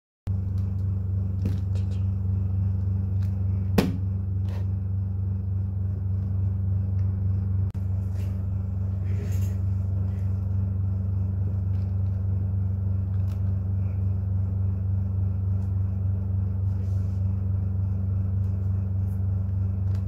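A steady low hum that cuts in abruptly at the start, with scattered faint plastic clicks from the layers of a 7x7 Rubik's cube being turned; the sharpest click comes about four seconds in.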